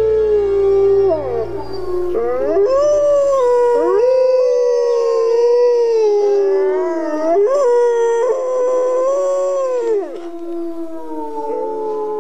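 Several wolves howling in chorus: long, overlapping howls that slide up and down in pitch, with short breaks and new howls starting about two, four and eight seconds in.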